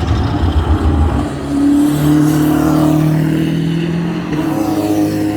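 GT3 race cars passing at racing speed, their engine notes sweeping down in pitch as they go by.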